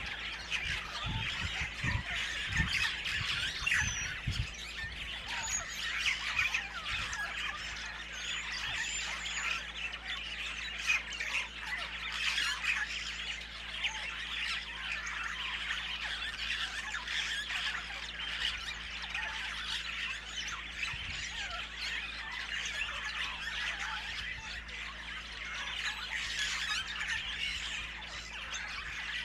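Dense chorus of many birds calling at once, full of squawks and chirps. A few low thuds come in the first four seconds.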